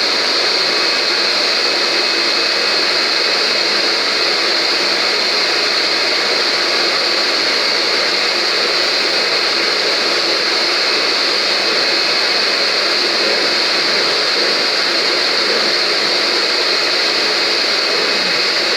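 Vacuum cleaner running steadily, its motor giving a constant high whine.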